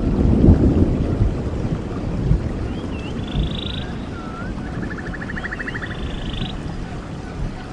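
Running stream water with a low rumbling rush that eases a little after the first second. A songbird sings three short phrases, each a couple of slurred whistles followed by a rapid trill.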